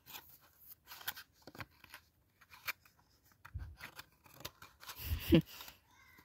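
Pokémon cards and their cardboard box being handled: scattered rustles, clicks and scrapes as the cards are slid back into the box, with a louder thump about five seconds in.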